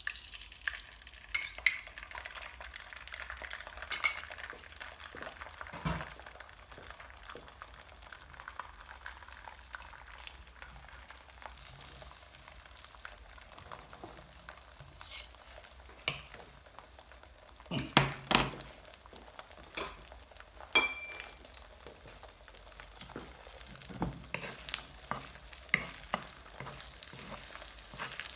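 Beaten eggs poured into hot oil in a nonstick frying pan, sizzling steadily as they fry. Occasional knocks sound over the sizzle, the loudest a pair about two-thirds of the way through.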